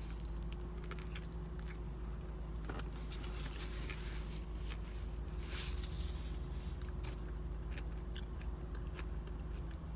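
A person eating a veggie wrap in a spinach tortilla: a bite at the start, then steady mouth-chewing with small crunches and wet clicks, heard close up. A steady low hum runs underneath.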